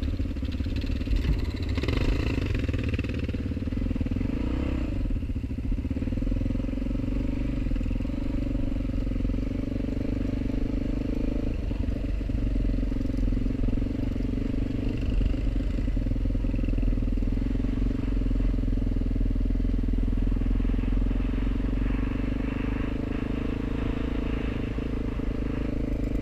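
Motorcycle engine running steadily at an even cruising speed, a constant drone over a low rumble.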